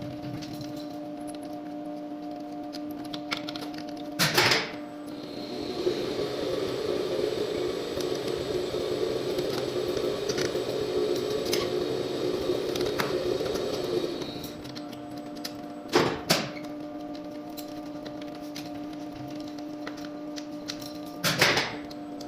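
Elevator control equipment with a steady electrical hum and sharp contactor clicks: one about four seconds in, two close together around sixteen seconds, and one near the end. Between the first and second clicks, a louder running noise with a faint high whine goes on for about nine seconds.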